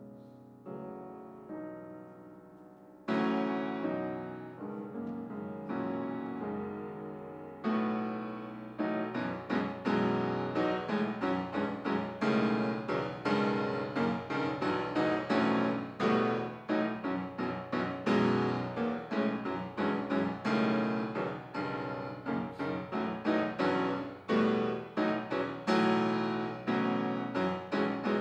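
Steinway grand piano playing solo contemporary classical music: a few soft, sparse chords, a louder chord about three seconds in, then from about eight seconds on a dense, rapid stream of loud struck notes and chords.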